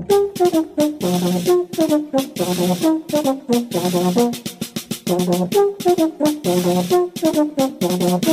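Brass band music: horns playing a quick melody of short, detached notes in chords over light percussion.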